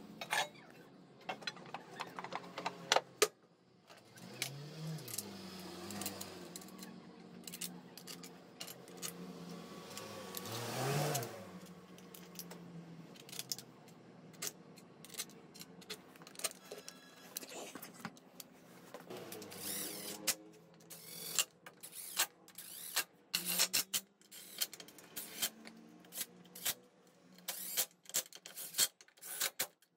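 Metal clinks and knocks of tools, bolts and parts being handled while a scooter's CVT belt cover is refitted, with a power tool running briefly, rising and falling in pitch, twice in the first half. A quick run of clicks fills the last third.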